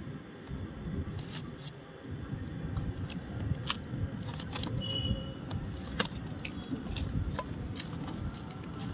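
A cardboard fireworks carton being torn and pulled open by hand: scattered clicks, scrapes and crinkles of the cardboard, the sharpest a few seconds in, over a steady low rumble.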